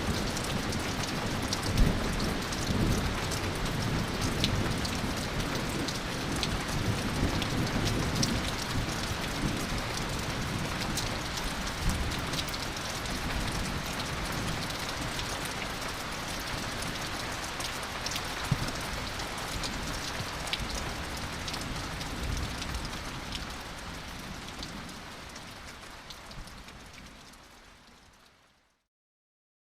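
Heavy rain falling steadily, with low rumbling thunder underneath and scattered sharp drip taps. The sound fades out gradually over the last few seconds into silence.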